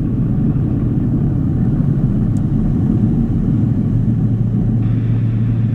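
Pipistrel Velis Electro electric two-seat trainer on its runway roll: a steady low rumble of the spinning propeller and tyres on the runway, with a low steady drone that grows stronger about three and a half seconds in.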